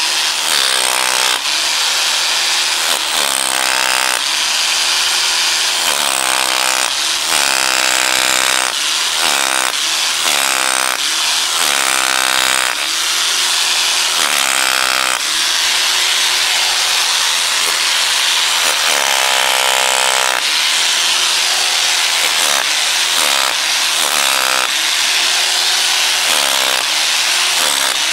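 Electric hammer drill used as a power chisel breaking concrete, heard through the wall. It runs without a break, its motor pitch dipping and recovering every second or two as the bit bites under load.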